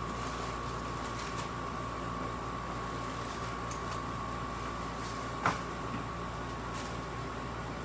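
Steady machine hum of a shop back room with a constant high whine, under light rustling and tapping of chip bags and cardboard boxes being handled. There is one sharp knock about five and a half seconds in.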